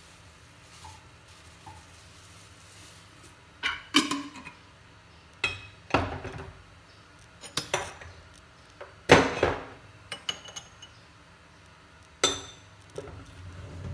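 Pots and dishes clinking and knocking. A string of about ten sharp, irregular clinks starts about four seconds in, each with a brief ring.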